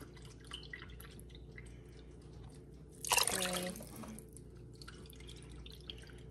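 Broth in a Dutch oven of sausage soup heating on the stove, giving faint scattered pops and drips as it bubbles. A short, louder sound comes about three seconds in.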